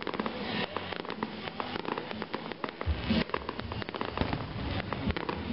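Fireworks display: a dense run of sharp crackling pops from an aerial firework burst, with a low rumble starting about three seconds in.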